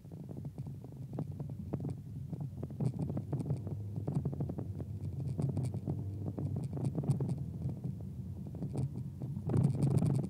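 Cabin sound of a 1999 Volkswagen New Beetle driving: a steady low engine and road rumble with many irregular small clicks and rattles, and a louder rough stretch near the end.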